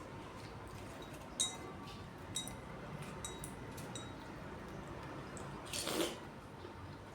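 Eating fruit at a table: four light clinks of cutlery against a dish, spread over the first four seconds, then a louder short noise about six seconds in.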